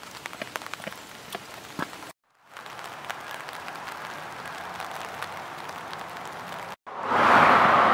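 Footsteps on pavement: irregular light taps over a faint outdoor hiss. The sound drops out twice at the cuts. Near the end a much louder, steady rush of noise comes in.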